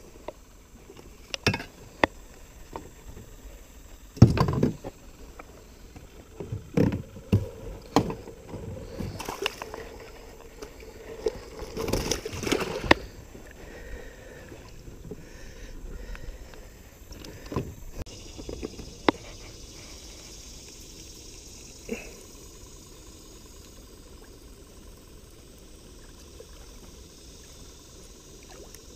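Knocks, clicks and bumps of an angler handling fish and tackle in a small fishing boat, with a louder thump about four seconds in and a short rush of noise around twelve seconds, quiet between.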